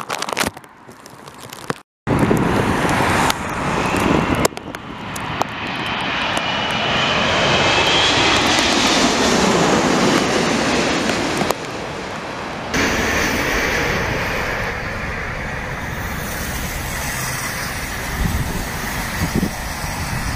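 Four-engined Qatar Airways Airbus A380 passing low overhead on landing approach: jet engine noise swells to a peak with a thin whine on top, then fades. About two thirds of the way through it gives way abruptly to steadier road traffic, with a lorry passing close by.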